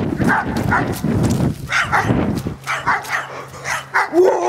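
A dog barking repeatedly in short, separate barks.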